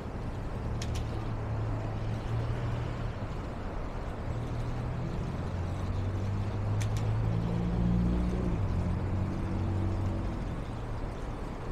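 City street traffic: the low, shifting drone of heavy vehicle engines over a steady wash of traffic noise, loudest about eight seconds in, with a couple of brief sharp clicks.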